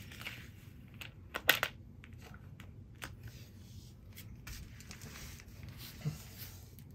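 Soft rustling and crinkling with a few sharp clicks, the loudest about a second and a half in, over a low steady hum.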